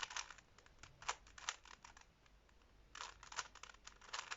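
Faint plastic clicking and clacking of a Rubik's Cube's layers being turned by hand, in short runs with a pause of about a second in the middle.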